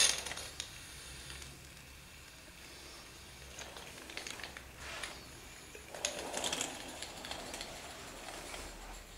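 Mamod SL3 live-steam toy locomotive running on its track: a faint steady hiss from its small oscillating-cylinder steam engine, with light mechanical clicking and clatter. A brief loud rush of noise comes right at the start, and a louder stretch of hiss and clatter about six to seven seconds in.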